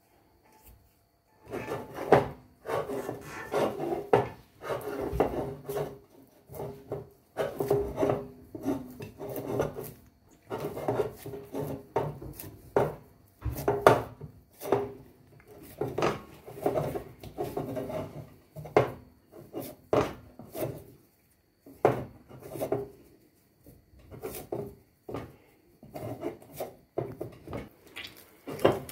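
Hands kneading and squeezing soft arepa dough of pre-cooked white corn flour and water in a bowl: a quick, continuous run of rubbing strokes, starting about a second and a half in.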